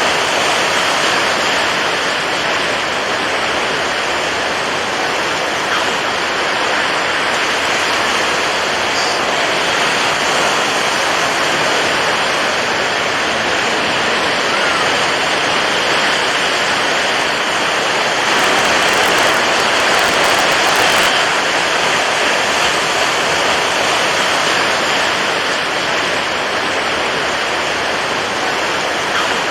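Steady rushing water, an even, continuous wash that swells slightly for a few seconds past the middle.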